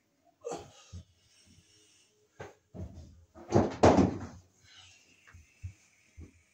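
Electrical cable rustling, scraping and knocking against the wooden floor joists as it is worked through holes overhead. The knocks are irregular, with a louder cluster about halfway through.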